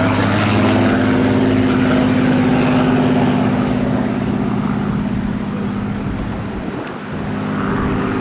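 Supermarine Spitfire's propeller piston engine running steadily in flight, dipping briefly in loudness about seven seconds in and then coming back.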